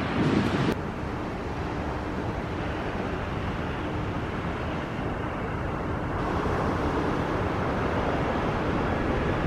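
Jet engines of a twin-engine widebody airliner at takeoff power during its takeoff roll and rotation: a steady rushing roar that grows louder toward the end. A louder stretch of jet noise from a previous departure cuts off abruptly under a second in.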